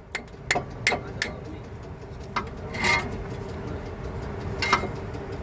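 Irregular sharp metallic clinks and knocks from hand tools and brake parts being handled, a few of them ringing briefly, over a steady hum.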